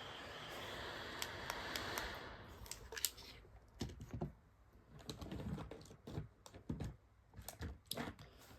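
A steady hiss that stops about two seconds in, then irregular light clicks and taps of skincare bottles, jars and lids being handled.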